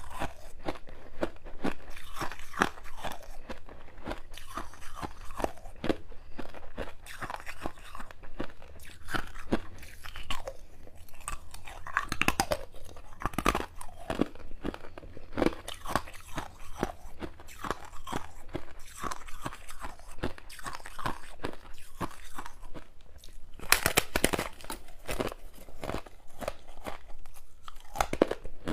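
Freezer frost being bitten and chewed close to the microphone: a continuous run of crisp, irregular crunches.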